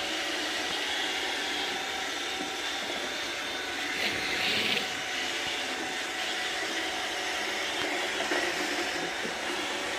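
iRobot Roomba 655 robot vacuum running, a steady whir of its motor and brushes, with a brief louder burst about four seconds in.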